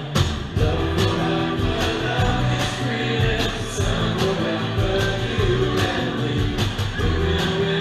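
Live rock band playing on a loud stage: electric bass guitar notes and guitar over a steady drum beat.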